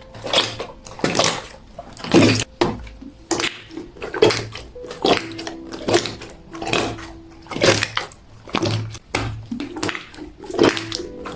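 Hands squeezing and pressing a clear, very fine 'fake water' slime with a silken-tofu texture, making wet squishing sounds about once a second. Soft background music plays underneath.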